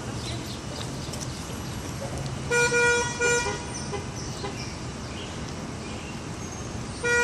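Car horn honking in a few short beeps over steady city traffic noise: a quick run of honks about two and a half seconds in, and another starting near the end.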